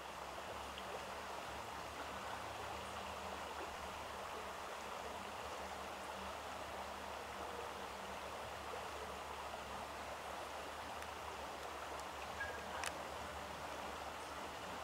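Steady, faint rushing noise with no pitch to it, with one sharp click about 13 seconds in.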